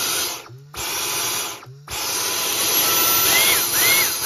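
Dyson V10 cordless stick vacuum running in three spells, its motor cutting out briefly twice and starting again. This is the pulsing a Dyson shows when its filter is clogged. Near the end three short whistles rise and fall over the rushing air.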